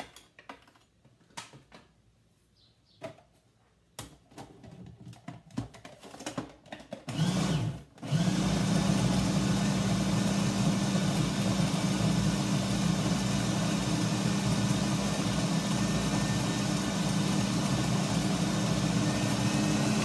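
Electric food processor blending a thick dough of peanut butter, flour, cornmeal and suet. A few knocks and clicks as the suet goes in and the lid is handled, a short pulse about seven seconds in, then the motor runs continuously with a steady low hum.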